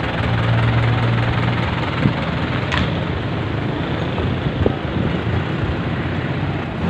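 Passenger jeepney's engine running, with a low steady hum and road noise, and a few short knocks.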